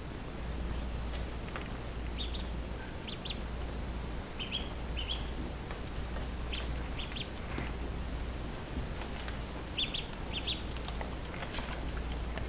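Duckling peeping: short, high chirps in little clusters of two or three, repeating every second or two, over a steady low hum.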